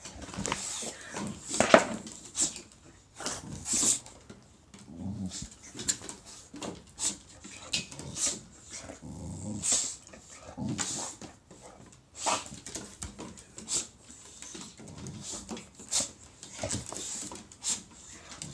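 Short, rasping, growl-like animal calls repeated every second or so from a boxer dog and a sulphur-crested cockatoo squaring off. Some calls are low and rumbling, others harsh and hissy, and the loudest comes about two seconds in.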